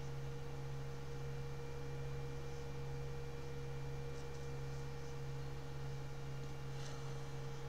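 Steady low electrical hum with faint background hiss, no speech; a couple of faint clicks about four and seven seconds in.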